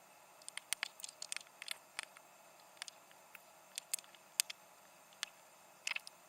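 Irregular small clicks and taps, some in quick clusters, from transistor and resistor leads being pushed into a solderless breadboard and small parts being handled, over a faint steady hiss.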